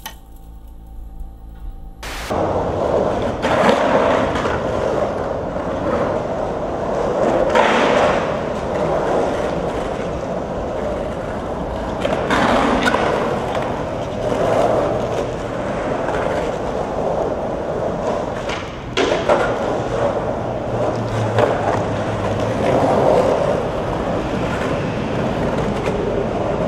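Skateboard wheels rolling and carving through a concrete bowl, the rolling noise swelling and fading with each pass. A sharp clack of the board hitting or landing comes every few seconds.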